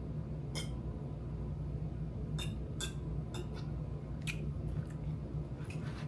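About eight small, sharp clicks and handling noises from a plastic vitamin water bottle as it is opened and drunk from, over a steady low hum.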